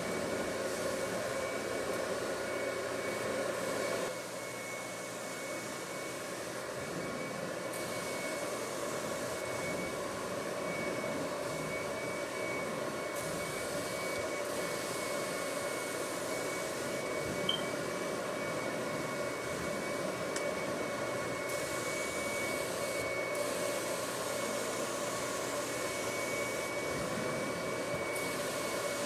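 Carpet-extraction machine running under vacuum as the cleaning wand is worked across the carpet: a steady suction rush with a constant high whine. The level steps down slightly about four seconds in.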